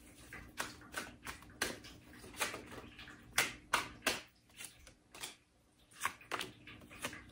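A deck of tarot cards being shuffled by hand: a string of short, soft card clicks and slaps, about two or three a second.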